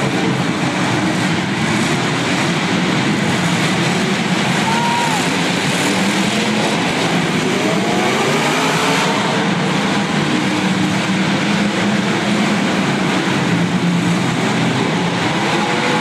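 Many demolition derby cars' engines running and revving together in a dense, steady din, with occasional rising and falling revs.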